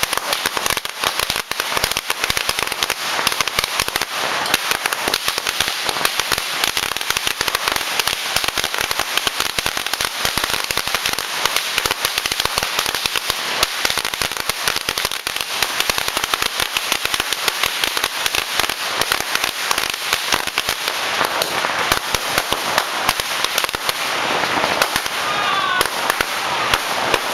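Firecrackers going off in a dense, rapid, continuous crackle of sharp bangs.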